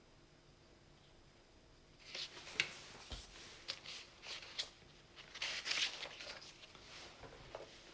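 Writing sounds: a run of short, irregular scratchy strokes starting about two seconds in, after a near-silent start.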